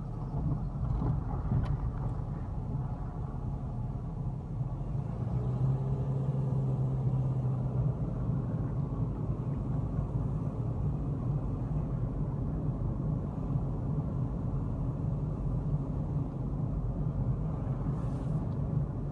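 Engine and road noise inside the cabin of a moving vehicle: a steady low rumble, with a steadier engine hum for a couple of seconds near the middle.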